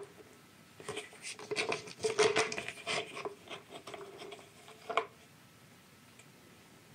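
A pet silver fox moving about and nosing around: a quick run of small dry clicks and crackles for about four seconds, cut off sharply about five seconds in.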